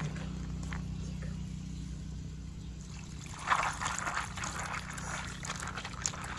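Water splashing and sloshing in a bowl as hands rinse and knead dried apricots, becoming louder about three and a half seconds in, over a steady low hum.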